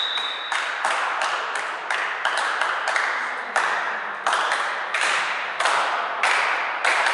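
Hand clapping echoing in a sports hall, about two to three claps a second at an uneven pace. The tail of a referee's whistle blast ends about half a second in.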